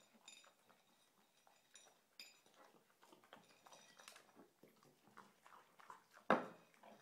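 A French bulldog eating from a dish: faint, scattered clicks and taps of eating, with one sharp knock about six seconds in.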